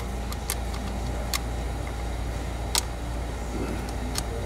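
A few sharp clicks and taps of hands fitting a plastic engine cover and starting its nuts, over a steady low hum.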